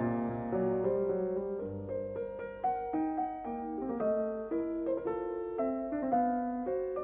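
Piano music: a melody of separate notes, each struck and left to ring, over lower notes and chords.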